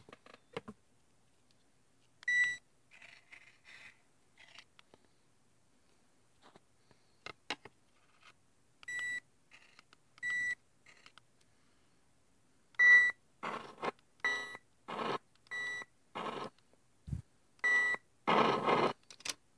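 Tooth Tunes musical toothbrush's tune coming out of a Boom Touch speaker through its pickup, as short, clipped, beep-like bursts. The bursts are sparse at first and come thick and fast from about thirteen seconds in, with the longest one near the end.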